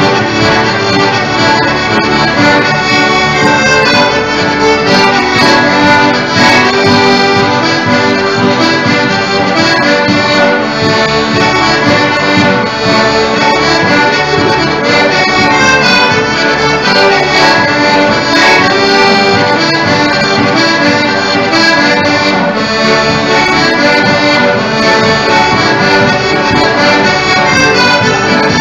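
An acoustic guitar and a second instrument playing an instrumental tune together, the second instrument carrying the melody in held notes.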